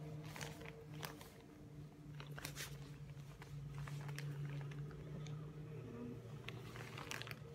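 Hands rubbing and patting moisturizer into facial skin: soft, sticky, wet skin sounds with faint scattered clicks, over a steady low hum.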